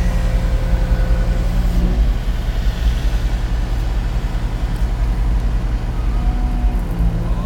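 Diesel engine of a Bobcat E80 excavator running steadily, with a faint whine in the first two seconds and again near the end.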